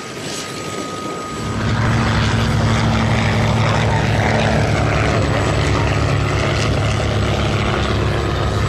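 Boeing CH-47 Chinook tandem-rotor helicopter running. Its engines and rotors swell to a loud, steady low drone about a second and a half in and then hold there.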